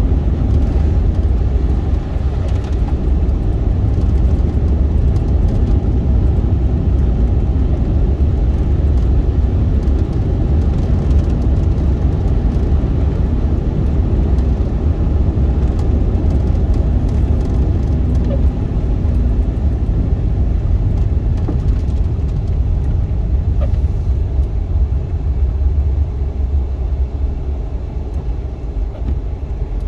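Steady in-cabin driving noise of a 2001 Suzuki Swift with its 1.3-litre four-cylinder engine: a heavy low rumble of engine and tyres on a snowy road, growing quieter near the end.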